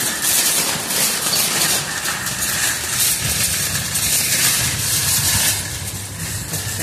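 Metal shopping cart rattling steadily as it is pushed over a concrete sidewalk.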